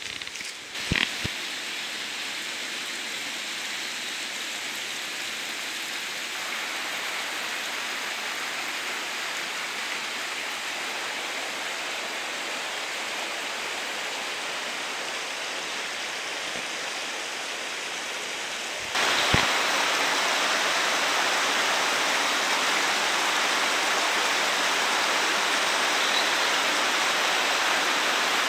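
Steady rushing of a rocky highland burn, water running over stones. It becomes suddenly louder about two-thirds of the way through. A couple of short knocks come about a second in.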